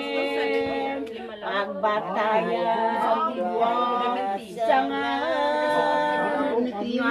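Unaccompanied singing by a woman's voice, long held notes that bend and slide in pitch with short breaks between phrases.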